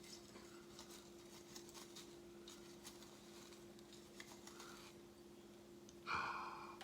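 Faint scratching and light clicks of tongs poking through dirt to pick out a worm, over a steady low hum; a brief louder rustle about six seconds in.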